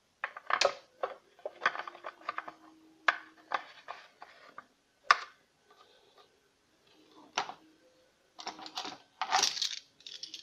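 Plastic engine cover of a Peugeot 308 VTi and its screws being handled and fitted by hand: an irregular string of sharp clicks and knocks, busiest near the end.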